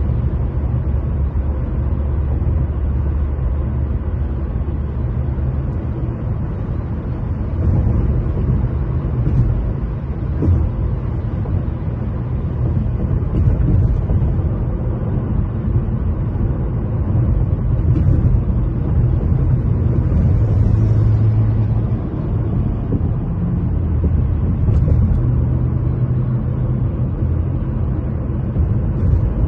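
Car driving, a steady low rumble of engine and road noise whose low hum shifts a little in pitch as the speed changes.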